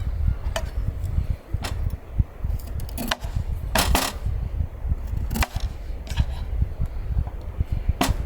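Strong wind buffeting the microphone with a steady low rumble, broken by about six sharp knocks or snaps at irregular intervals, two of them close together near the middle.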